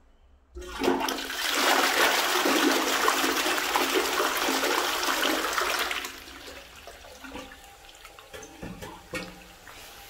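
A 2009 Vaal "Hibiscus" front-flush toilet with its original Parker flush mechanism flushing. A loud rush of water starts about half a second in and lasts about five seconds, then dies down to a much quieter running of water.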